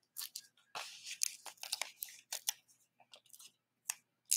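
Foam adhesive dimensionals being peeled off their backing sheet and pressed onto the back of a paper card panel: a run of short, irregular crackling and peeling noises.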